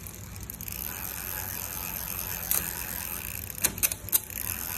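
Vintage Panasonic road bike's drivetrain turning on a stand: the chain runs over the rear cogs and derailleur with a steady whir as the rear wheel spins. A few sharp metallic clicks come through, one about halfway through and a quick cluster of them near the end.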